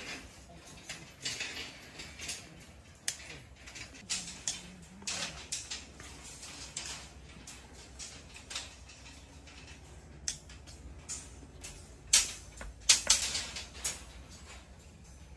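Hand-tool repair work: irregular sharp clicks, knocks and scrapes, with the loudest knocks bunched about twelve to thirteen seconds in.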